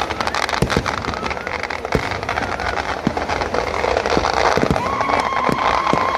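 Fireworks display: a dense, continuous crackling of firecrackers and bursting shells, with a dozen or so sharper bangs scattered through it. Near the end a steady whistle-like tone is held for over a second.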